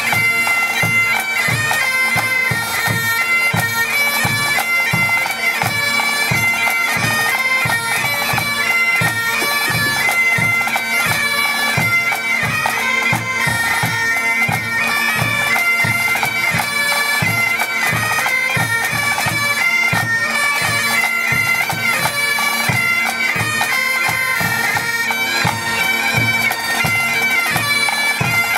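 Pipe band playing: Great Highland bagpipes sounding a tune over their steady drones, with drums keeping a regular beat underneath.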